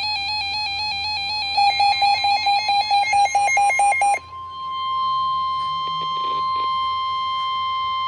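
NOAA weather radios going off for a severe thunderstorm warning. For about four seconds a radio's electronic alarm beeps in quick warbling pulses, about four to five a second. It cuts off suddenly and the steady 1050 Hz NOAA Weather Radio warning tone takes over, which marks a warning-level alert before the voice message.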